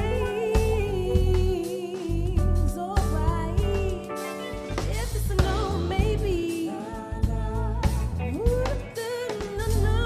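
Live band music: a woman singing a gliding lead melody over bass guitar, drum kit and keyboards.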